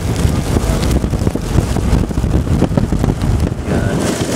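Gusty storm wind buffeting a moving car and its microphone, a loud, uneven rumble under the road noise. A hiss of rain builds near the end.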